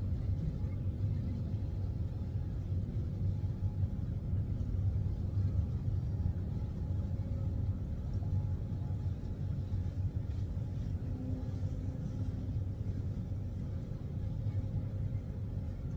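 Steady low rumble of outdoor city background noise, with a faint steady hum above it.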